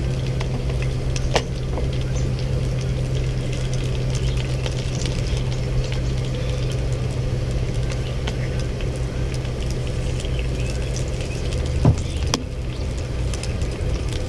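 A steady low machine hum, like an engine or generator running, throughout. Over it come light clicks and taps as seasoning jars and a glass shaker bottle are handled on a table, with a sharper knock about twelve seconds in.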